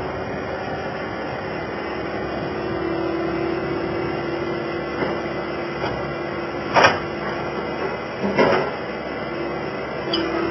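Skid steer loader running steadily, with a faint held whine. Two sharp metal clanks come about seven and eight and a half seconds in.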